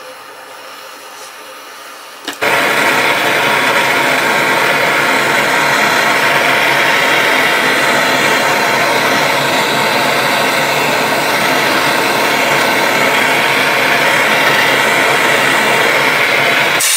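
A small electric power tool starts abruptly a couple of seconds in and runs steadily at high speed, the kind of tool used to grind or polish metal, then stops just before the end.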